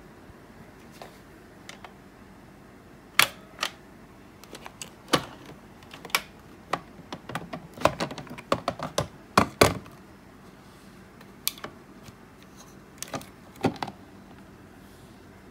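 Hard plastic clicks and clacks as the Ninja Creami's outer bowl is twisted to unlock and lifted off the machine and its lid is taken off. The clicks come irregularly, a pair about three seconds in, then a busy cluster around the middle and a few more near the end.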